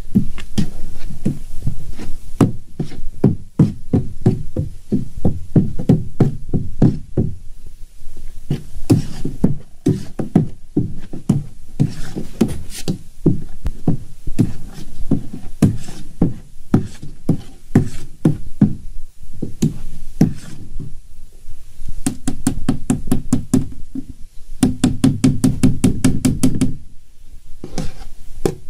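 A spoon knocking rapidly and repeatedly against the side of a plastic tub while stirring fermenting grape must. Near the end the knocks come faster and more evenly for a few seconds, then stop briefly.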